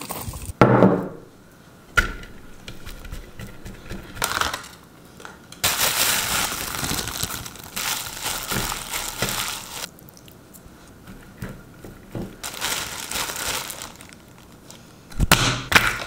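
Kitchen handling sounds: a thin plastic food-prep glove crinkling as a gloved hand squeezes and mixes cooked rice in a wooden bowl, among scattered knocks and rustles, with a louder burst of rustling near the end.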